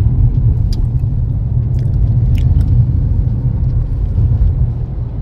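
Car driving on the road: a steady low rumble of engine and road noise.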